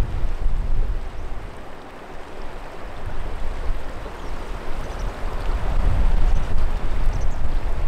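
Wind rumbling on the microphone over choppy water lapping. The rumble eases about two seconds in, then builds again.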